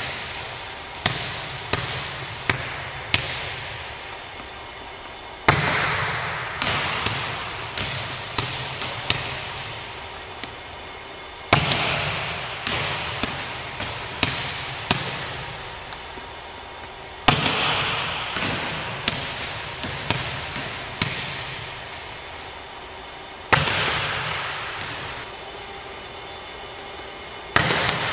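Volleyball serve drill in an echoing empty gym: a loud hit about every six seconds, each followed by a run of smaller knocks, about two a second, from the ball bouncing on the hardwood floor.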